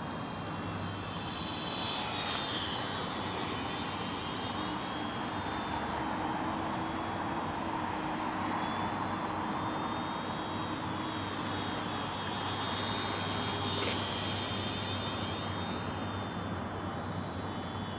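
High-pitched whine of a ParkZone T-28 Trojan Ultra Micro RC plane's small electric motor and propeller. It swells and bends in pitch as the plane passes, once about two seconds in and again near fourteen seconds, over a steady background hiss.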